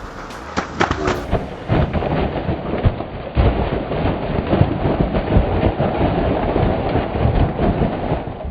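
Heavy snow load sliding off a roof: a long, loud, rough rumble with many sharp cracks and thuds as the mass gives way and comes down.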